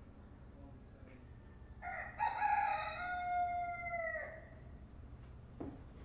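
A rooster crows once, a single call of about two and a half seconds that drops in pitch at the end, over a steady low background rumble.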